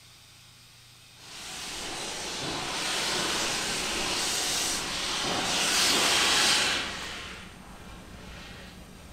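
Steam locomotive venting steam: a loud hiss that starts about a second in, swells, and falls away about seven seconds in.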